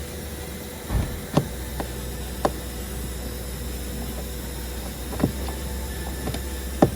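Scattered clicks and taps of a Torx screwdriver and screws being worked out of a car's plastic door trim panel, about six in all with the loudest near the end, over a steady low hum.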